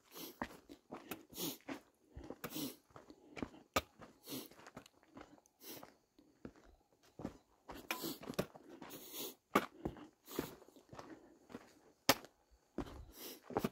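Footsteps of a hiker on a dirt and gravel trail, crunching unevenly as he steps down stone steps.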